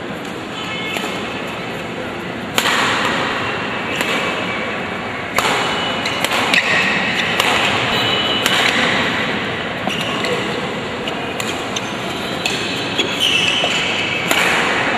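Badminton rally: rackets striking the shuttlecock in sharp hits roughly once a second, over steady background noise.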